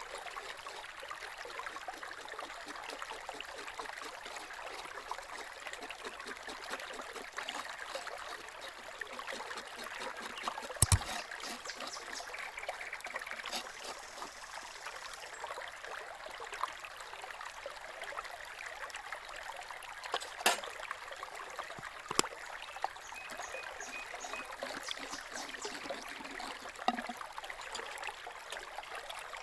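Steady trickle of running water, like a small stream, with a few sharp knocks breaking through, the loudest about a third of the way in and two more past the two-thirds mark.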